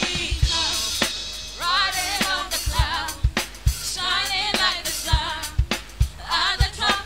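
Gospel worship song: voices singing over a band with a drum kit, the kick drum hitting beneath the melody.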